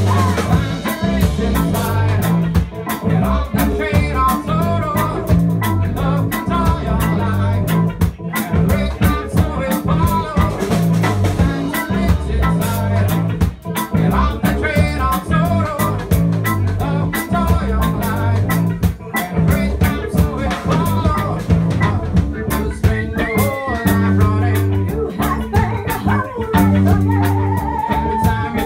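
Roots reggae band playing: drum kit, electric guitars and a heavy repeating bass line, with sung vocals over the top.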